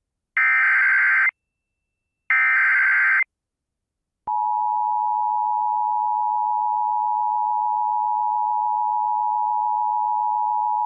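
Emergency Alert System header from a Sage ENDEC: two short bursts of screechy SAME data, about a second each with a second's gap between them, then about four seconds in the steady two-tone EAS attention signal starts and holds. It announces an incoming flash flood warning.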